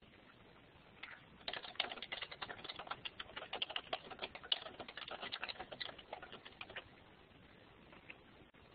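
Computer keyboard being typed on: a quick, irregular run of keystrokes starting about a second in and stopping a little before the end, with one last lone keystroke near the end.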